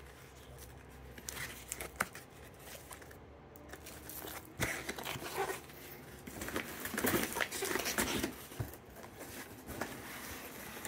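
Vacuum-sealed plastic steak packs and a cardboard box being handled: plastic crinkling and rustling, with a couple of sharp knocks as packs are set down in the box, and busier rustling from about the middle on.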